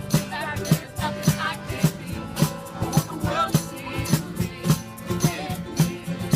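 Background music: a song with a singing voice over a steady drum beat, a little under two beats a second.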